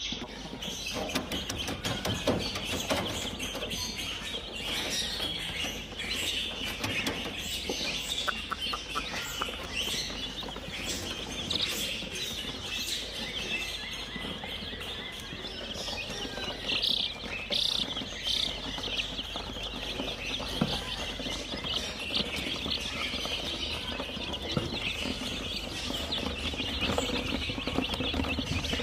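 A flock of young domestic chicks peeping continuously, many high calls overlapping.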